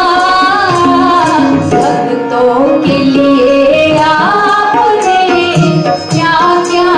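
Instrumental interlude in an Indian devotional bhajan: a bansuri flute carries a gliding melody over keyboard accompaniment, with drum strokes keeping a steady beat.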